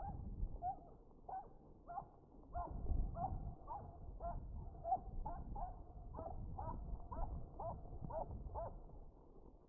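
A dog giving a steady run of short, rising yips, about two a second, over a low rumble: excited yipping right after a deer was sighted on the trail.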